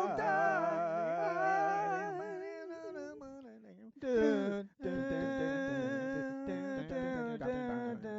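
Wordless singing: voices hold long wavering notes over a steady lower note. The notes fade away about three and a half seconds in, and a new held phrase begins just after four seconds.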